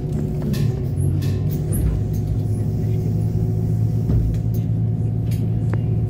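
City bus engine idling, a low drone heard from inside the passenger cabin, with a few short knocks and clicks in the first couple of seconds.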